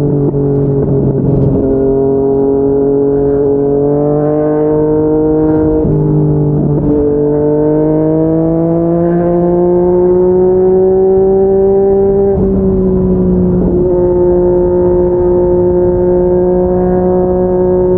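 Yamaha MT-09 inline-three engine running through an aftermarket slip-on exhaust, pulling under throttle. Its note climbs slowly and briefly breaks at gear changes about five times, then holds steady near the end.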